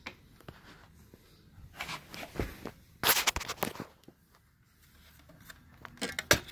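Hard plastic parts of a Shark Navigator Lift-Away vacuum cleaner being handled, not running: scattered clicks and short scraping rustles, the loudest about three seconds in and a cluster of clicks near the end.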